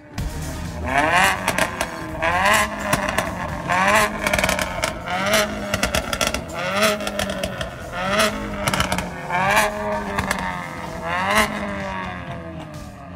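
Mercedes-AMG A45's turbocharged four-cylinder engine revved repeatedly while standing, about eight blips each rising and falling in pitch, with crackling pops from the exhaust between them.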